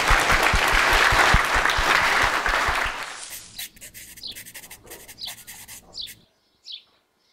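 Audience applauding, cut off abruptly about three seconds in. A few faint, short, high sounds follow.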